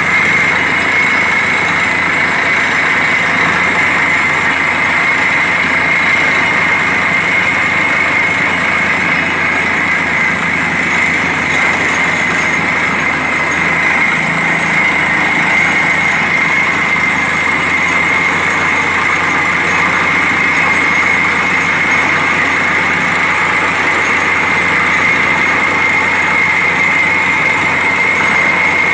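Borewell drilling rig running steadily: loud, even machine noise with a constant high whine.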